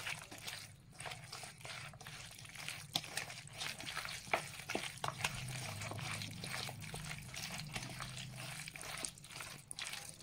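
A hand squishing and kneading chicken pieces through a thick yogurt-and-spice marinade in a steel bowl: faint, irregular wet squelches and smacks.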